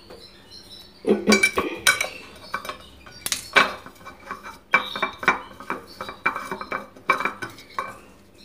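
Metal kitchen utensils and dishes clinking and knocking in irregular sharp clicks, some with a short ring, while a red onion is being peeled for the remedy.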